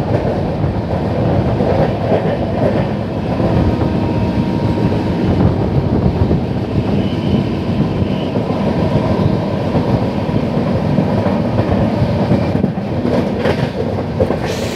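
Indian Railways train running along the track, heard from on board: a steady, loud rumble of wheels on the rails.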